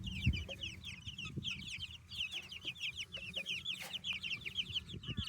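A brood of chicks peeping nonstop, a dense chorus of quick, high, downward-sliding chirps. There is one low thump about a third of a second in.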